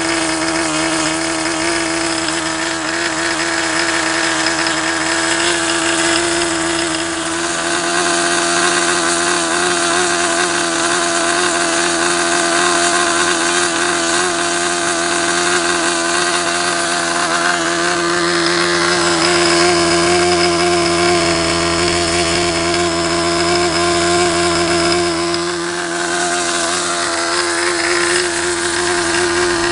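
SuperTigre G51 two-stroke glow model-airplane engine with a 10x6 propeller, running steadily at high revs on a test stand during break-in, not yet peaked. Its pitch holds steady, with a brief dip near the end.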